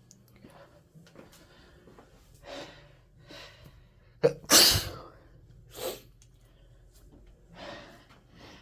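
A person's sneeze about halfway through: a sharp catch, then a loud blast. Softer breaths come before and after. The sneezes are induced to clear sinuses congested by flowers.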